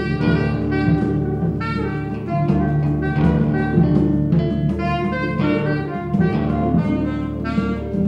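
Improvised experimental jazz played by a small ensemble. A reed instrument plays short melodic phrases over a sustained low drone, with notes changing about every half second.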